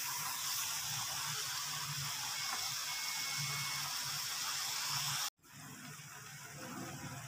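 Ridge gourd slices sizzling in a pan of fried masala, a steady hiss. It breaks off about five seconds in and comes back quieter.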